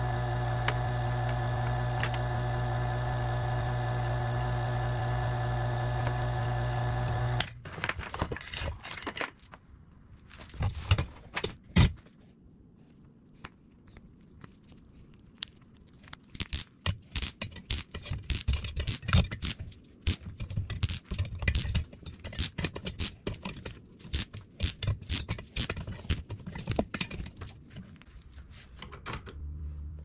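Electric wire-stripping machine's gear motor running with a steady hum, then cutting off suddenly about seven seconds in. After that, hands work a power cord: scattered clicks, crinkling and scraping of wire and insulation.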